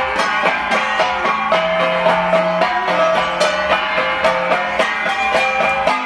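Kalinga gangsa (flat bronze gongs) struck with sticks in a pattong gong ensemble. Several gongs of different pitch ring in a fast, even beat.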